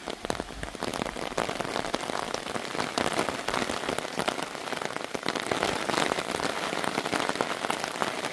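Steady rain falling, with a dense patter of many sharp individual drop hits.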